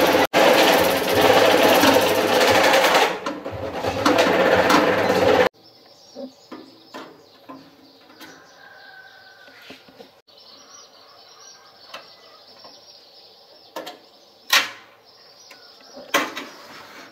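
A loud machine or power tool running, cut off suddenly about five seconds in; after that it is quiet, with a faint steady high hum and scattered light clicks and knocks of handling, two of them louder near the end.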